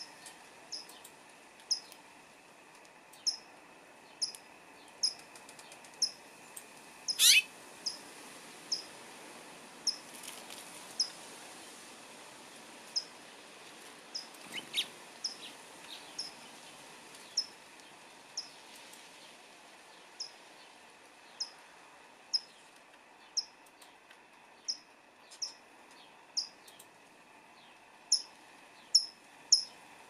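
A small songbird chirping over and over: short high chirps about once a second, with one loud, longer sweeping call about seven seconds in and the chirps coming faster near the end.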